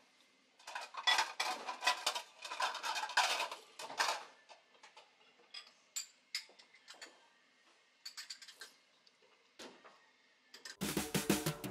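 Someone eating Hakata tonkotsu ramen: a few seconds of noisy slurping of noodles, then scattered light clicks of chopsticks against the bowl. Piano music comes in near the end.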